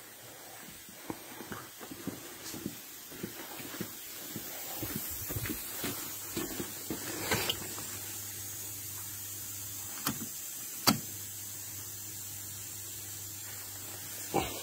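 Footsteps and handling noises, then a few sharp clicks as the rotary switches and buttons of an electrical control panel are worked. A steady low hum runs under the clicks.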